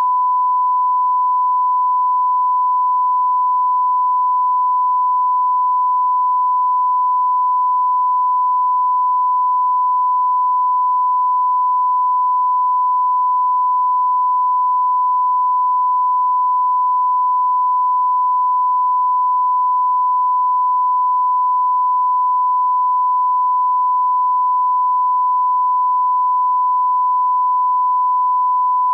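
Steady 1 kHz sine-wave line-up tone: the reference tone that goes with colour bars, used to set audio levels.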